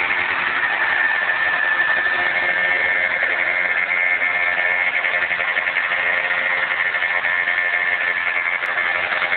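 MBK Ovetto scooter's two-stroke single, fitted with a Malossi Sport 70cc cast-iron cylinder kit, idling steadily.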